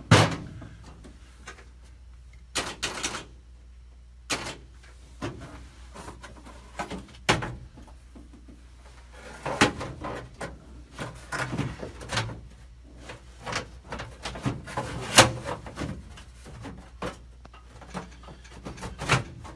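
Irregular knocks, clicks and clatter of hand tools and metal parts being handled while working on a drag race car, over a steady low hum.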